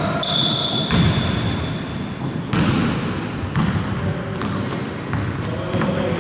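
Basketball game play on an indoor court: the ball bouncing, with sharp impacts roughly a second apart and short high-pitched squeaks between them.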